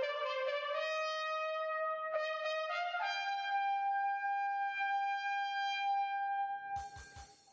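Music: a melody of held, brassy-toned notes that settles on one long held note about three seconds in. The note breaks off near the end, followed by a few short knocks.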